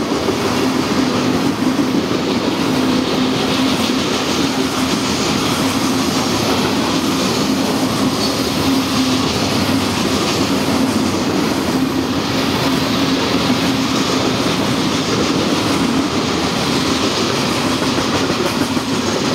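Freight train of covered hoppers and tank cars rolling past: steady wheel-on-rail rolling noise with a constant hum running through it.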